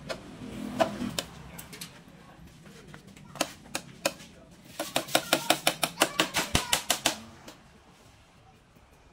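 Hammer tapping on bamboo: a few single knocks, then a fast, even run of about seven taps a second for some two seconds.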